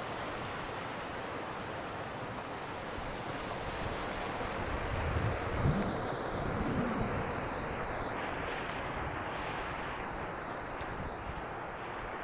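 Steady rush of river water pouring over a low weir, with a few low gusts of wind on the microphone about halfway through.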